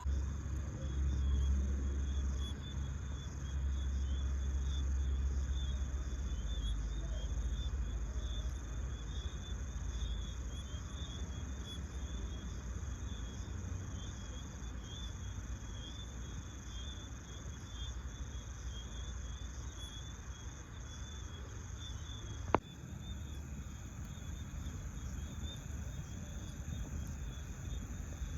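Crickets trilling steadily in a continuous high shimmer, over a low rumble that is strongest in the first few seconds. A single sharp click about two-thirds of the way through.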